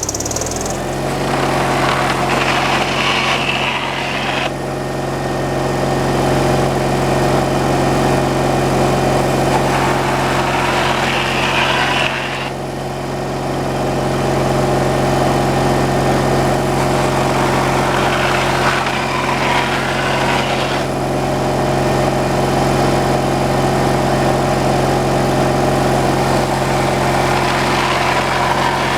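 Gasoline engine of a homemade slab-wood cutting machine running steadily at idle, freshly started. A hiss comes and goes three times over it.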